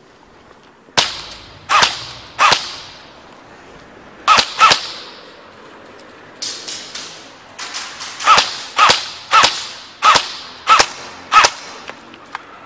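Airsoft guns firing single shots: about a dozen sharp cracks, each followed by a short echo, coming in a quicker run of roughly two a second in the second half.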